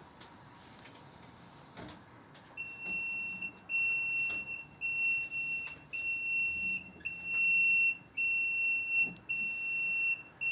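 Electronic alarm beeper sounding a steady high tone in repeated beeps, each a little under a second long with short gaps, starting a few seconds in after a few faint clicks.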